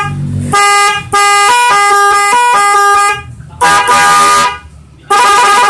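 Snail-type electric horns driven by a telolet module, sounding loud horn toots: a short blast, then a two-second tune of stepping notes, then two more short blasts.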